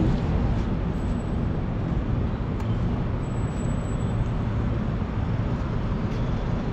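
Steady low rumble of city traffic and outdoor background noise, without any clear single event.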